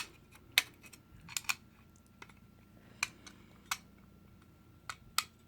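Sharp metal clicks and clinks, about eight at irregular intervals, as the parts of a Stanley staple gun are handled and fitted back together after unjamming.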